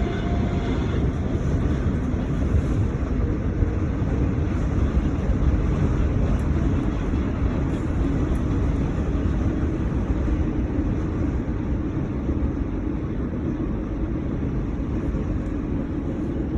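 Steady rumble of a Class 313 electric multiple unit running along the line, heard from inside the carriage, with a faint steady hum over the noise.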